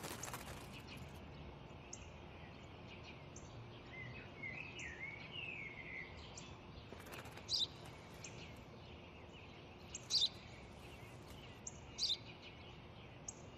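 Sparrow chirping: a short twittering phrase about four seconds in, then single sharp chirps about every two seconds over a low steady outdoor hiss.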